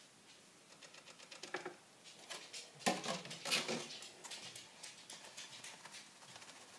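Superworms and their dry bran bedding rustling and pattering against a thin clear plastic tub as it is handled, a dense run of light ticks with a soft knock about three seconds in.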